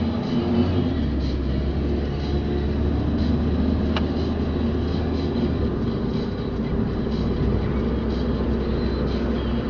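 Car driving along a road: steady low engine and tyre noise, with a single sharp click about four seconds in.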